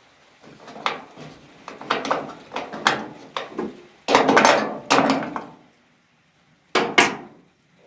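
Metal knocks and scraping clatter from a small sheet-steel repair piece being handled and fitted against a car body's drip rail, then two sharp knocks near the end.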